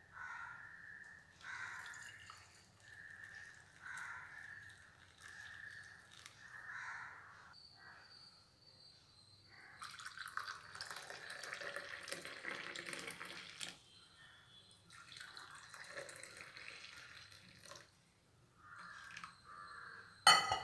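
Hot spice decoction poured from a steel saucepan through a plastic tea strainer into a steel tumbler, trickling in short spurts. About halfway through it is poured from the tumbler into ceramic cups, a louder, steadier splashing pour of a few seconds.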